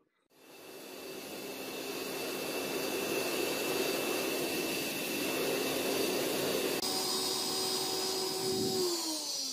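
Electric air blower feeding a small metal-melting furnace, running with a steady whine over a rush of air and building up over the first second or two. About seven seconds in its tone changes, and near the end the whine slides down in pitch as it winds down.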